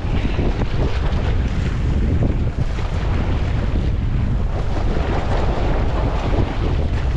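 Strong wind buffeting the microphone, steady and loud, over water rushing and splashing along the hull and outrigger floats of a Hobie Tandem Island sailing trimaran making about 6 to 7 mph through choppy waves.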